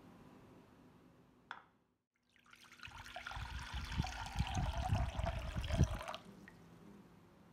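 Water poured from a jug into a saucepan, filling it with about a litre. The pour starts about two seconds in, grows louder and stops about six seconds in. A short click comes just before it.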